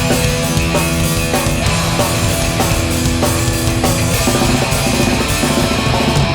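Hardcore punk band playing live: distorted electric guitars and bass over a drum kit, the held chord changing about four seconds in.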